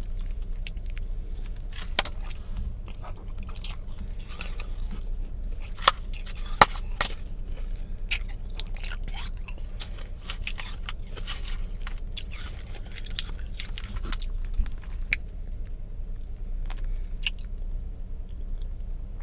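Close-up chewing and crunching of soft, powdery ice that was ground in a blender, a quick run of small crackling bites that thins out over the last few seconds. A steady low hum sits underneath.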